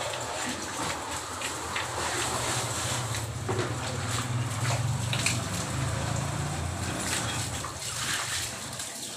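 Water splashing and sloshing on a wet tiled floor, with scattered taps and clicks and a steady low hum underneath.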